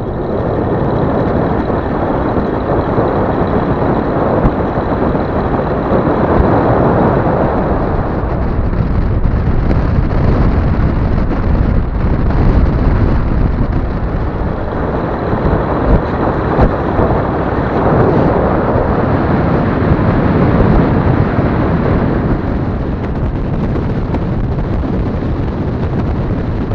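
A vehicle driving: a steady, loud rumble of road and wind noise with no clear engine note, swelling and easing slightly.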